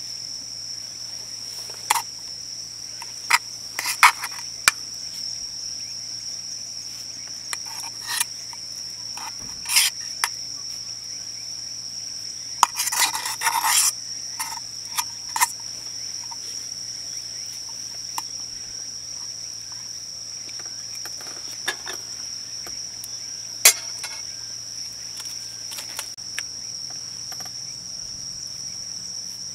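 Crickets chirring in one steady high trill, with scattered short clicks and clatters, a denser run of them about thirteen seconds in.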